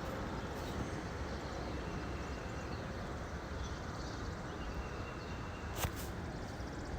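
Wind buffeting the phone's microphone outdoors, a steady rushing noise, with one sharp click about six seconds in.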